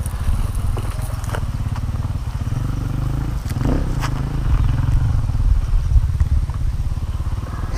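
Motorcycle engine idling with a steady, rapid low pulsing, a little louder for a couple of seconds midway.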